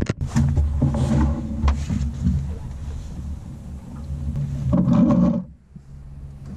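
Outboard motor running steadily at low speed, with a few knocks and rattles on the boat.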